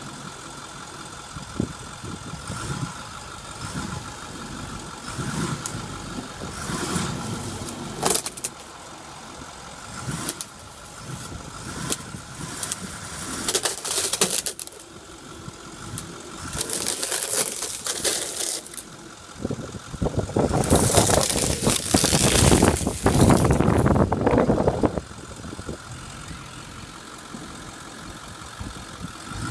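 Ford F-250 Super Duty pickup's engine running as the truck pulls down a white picket fence, with the fence cracking and clattering in irregular bursts. The loudest stretch, a long spell of crunching and scraping, runs from about twenty to twenty-five seconds in.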